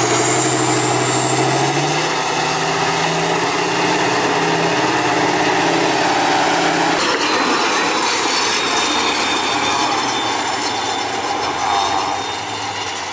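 Tatra 815 6x6 trial truck's diesel engine working hard as it crawls across a steep grassy slope, the engine note rising early on with a high whine climbing slowly in pitch above it. About seven seconds in the sound changes abruptly to a lower, rougher engine note.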